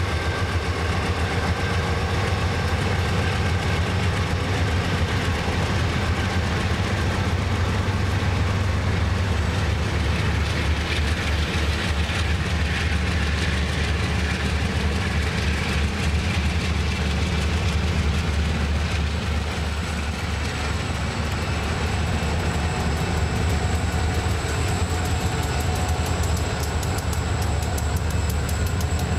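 Diesel freight locomotives (GE C39-8 and C40-9W units, then an EMD SD40) passing close by with their engines working under load as the train accelerates from a dead stop: a steady, heavy rumble. A thin high whine joins about twenty seconds in.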